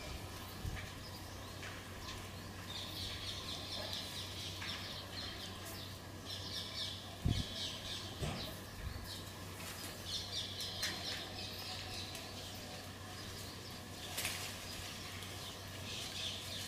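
Birds chirping in the background in bursts of a second or two, over a low steady hum, with one soft thump about seven seconds in.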